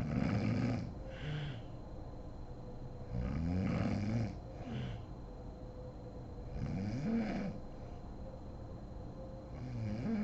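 A woman snoring in her sleep, four snores about three seconds apart, the first two each followed by a shorter second sound. A faint steady hum runs underneath.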